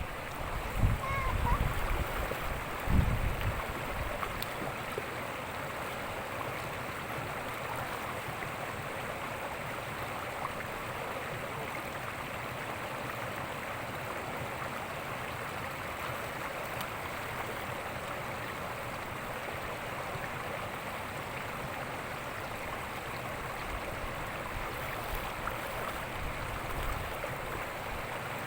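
River water rushing and flowing steadily, with a few low thumps in the first few seconds.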